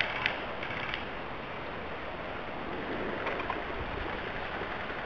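Steady rustling noise of someone moving through forest undergrowth, with a few sharp clicks in the first second.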